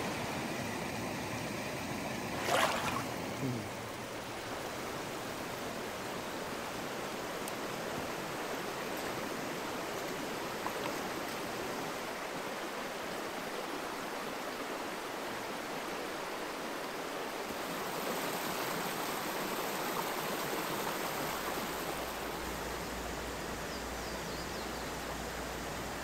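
Small mountain stream flowing, a steady rush of moving water. A short, sharp noise stands out about two and a half seconds in.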